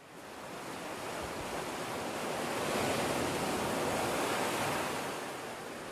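Ocean surf: a rushing wash of waves that fades in, swells to its loudest around the middle and eases off slightly toward the end.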